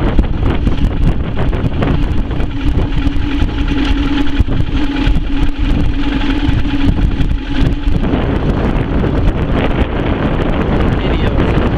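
Small boat's motor running under way, with a steady hum that stops about eight seconds in, over heavy wind noise on the microphone.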